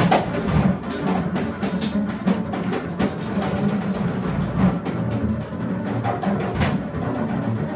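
Free-jazz drum kit playing busy, irregular strikes with crashing cymbals, over a walking double bass.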